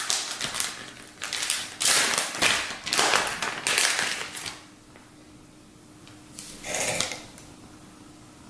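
Plastic bait packaging crinkling and rustling as it is handled, in crackly bursts for the first four seconds or so and once more, briefly, about two-thirds of the way through.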